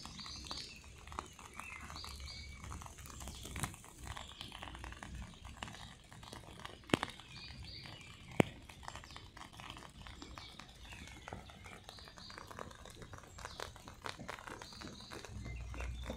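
Small birds chirping off and on, short high chirps every second or two, over a bed of faint scattered ticks and patter. Two sharp clicks stand out in the middle.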